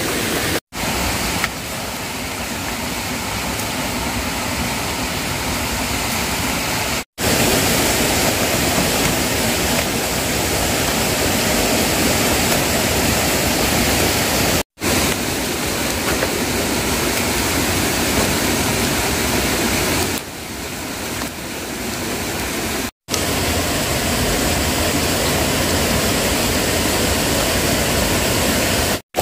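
Rushing stream water: a loud, steady hiss of flowing water, broken by a few very short drop-outs.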